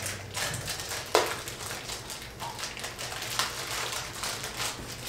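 Gloved hands handling a single-use plastic speculum and tubing: rustling and crinkling with a few small clicks, the sharpest about a second in.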